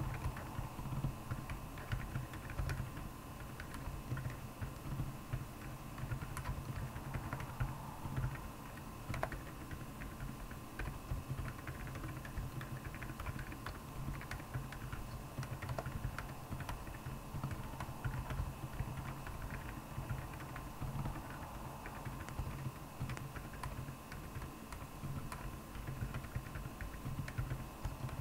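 Continuous typing on a Royal Kludge R75 mechanical keyboard with Akko Penguin tactile silent switches: a steady stream of muted, dampened keystrokes with soft low thuds.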